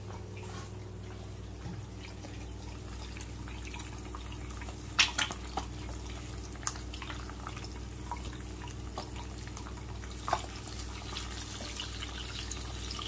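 Four eggs frying gently in a nonstick pan, with light spitting and crackling over a steady low hum, and a few sharp clicks and pops, the loudest about five seconds in and again near ten seconds.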